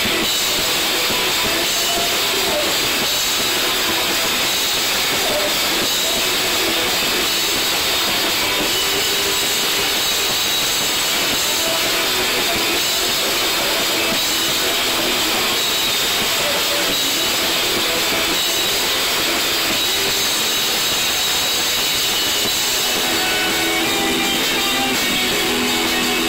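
Live rock band playing a steady, hissing wall of distorted noise with few clear notes; guitar notes come through near the end.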